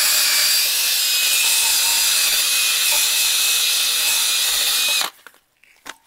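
Drill-driven wire brush scouring the aluminium block of a Reliant engine to clean it: a steady, high, scratchy hiss over the drill's whine. It stops suddenly about five seconds in.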